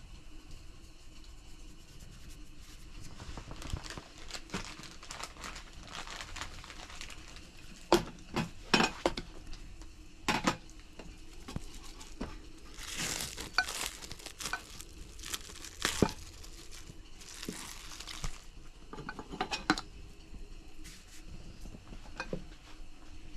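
Handling sounds: scattered knocks and clinks of dishes and utensils, with two stretches of packaging or foil crinkling.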